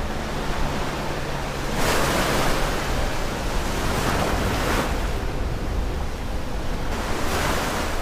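Ocean surf washing onto a shore: a steady rush of water with three louder swells, about two seconds in, about four seconds in, and near the end.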